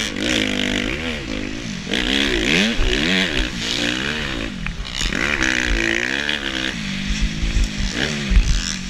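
2018 Suzuki RM-Z250's four-stroke single-cylinder engine revving up and falling back again and again as the throttle is worked, with wind rushing over the microphone. A loud thud comes near the end.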